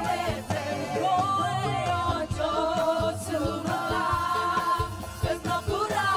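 Music with a group of voices singing, held wavering notes over a low beat.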